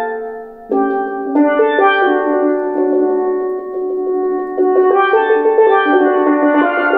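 Tenor steelpan played with sticks: chords held with a rapid roll. A new chord comes in just under a second in, again about a second and a half in, and again about four and a half seconds in.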